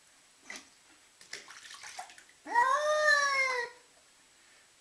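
A cat yowling: one long meow that rises and then falls in pitch, about two and a half seconds in. Before it, faint splashing and small knocks of water in a bath.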